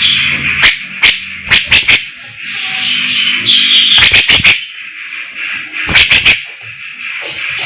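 Grey-cheeked bulbul (cucak jenggot) singing loudly: harsh rasping chatter broken by sharp snapping notes, several of them in quick runs of three or four.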